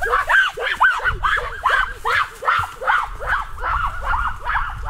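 A dog yelping rapidly, about four to five short yelps a second, each rising and falling in pitch.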